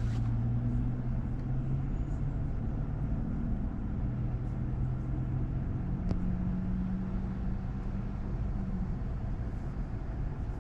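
Car engine idling with a steady low hum, heard from inside the car.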